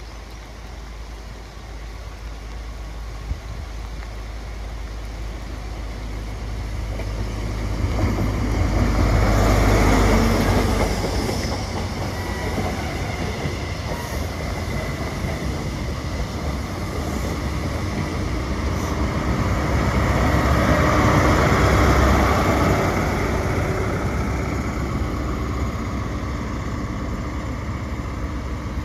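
Passenger train moving through the station, its engine and wheels on the rails swelling to a loud peak about ten seconds in and again about twenty-two seconds in, then easing to a steady rumble. Wind buffets the microphone underneath.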